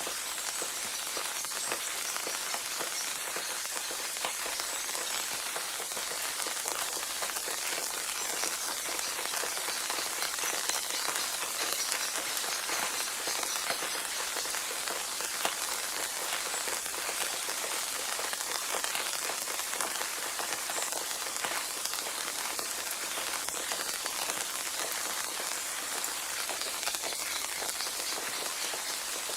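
Steady rain falling on a surface, an even hiss full of fine individual drop ticks.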